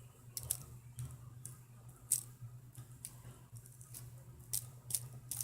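Scattered irregular clicks and light scrapes from small objects being handled, over a steady low hum.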